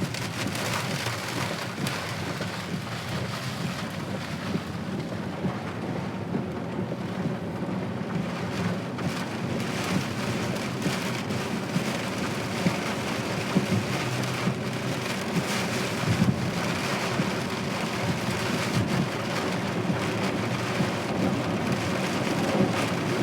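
Rain drumming on a moving car, heard from inside the cabin: a steady hiss of many small drop ticks over a continuous low rumble.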